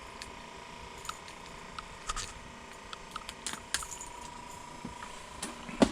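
Scattered small clicks and rustles of handling fishing gear and a freshly caught perch on the ice, with one louder knock just before the end. A faint steady high-pitched hum runs underneath.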